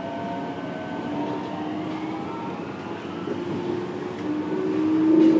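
Running sound inside a Fukuoka City Subway 1000N series car: the electric train's motor whine, heard as several steady tones over wheel and rail noise, grows louder near the end.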